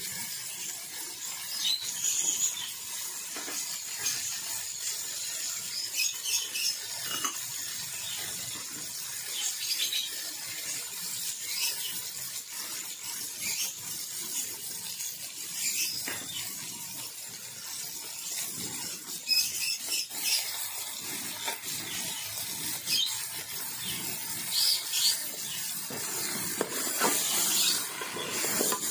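Meat and spices sizzling in an aluminium cooking pot, a steady hiss, with occasional clinks of a metal spoon against the pot. Near the end the spoon scrapes and stirs as the meat is fried with the masala.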